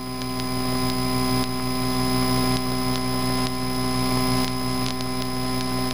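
Cessna 152's four-cylinder engine and propeller running at full power on the takeoff roll of a touch-and-go, heard from inside the cockpit as a steady droning hum made of several steady tones, building slightly in the first second.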